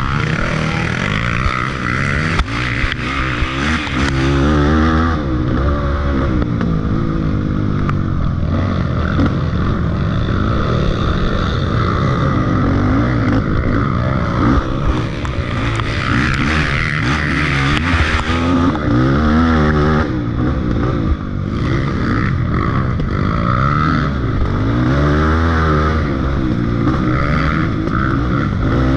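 Off-road racing motorcycle engine running hard, its pitch rising and falling over and over as the throttle opens and closes.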